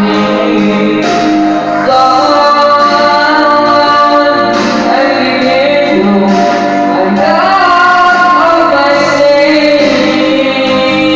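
A song playing: a high singing voice holding long notes over a dense band accompaniment.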